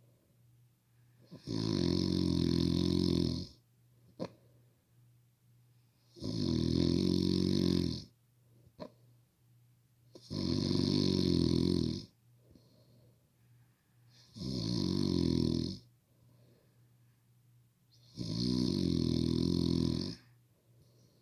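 Heavy, loud snoring in a steady rhythm: five long, low snores, each about two seconds, repeating about every four seconds.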